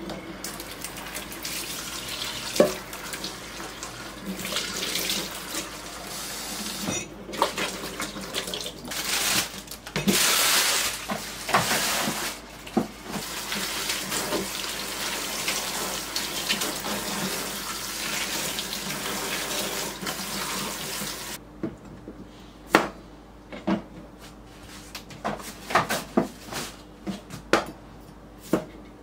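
Kitchen tap with a swivel spray head running into a stainless steel sink while lettuce is washed and torn under it, with scattered clatters. The water shuts off abruptly about three-quarters of the way through. Sharp, irregular knocks follow: a knife slicing cucumber on a plastic cutting board.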